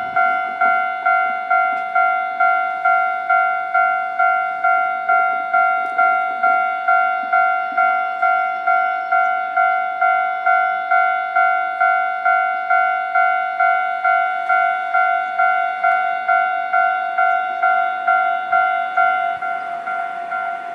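Japanese railway level-crossing warning bell ringing: an electronic ding repeated evenly a little over twice a second.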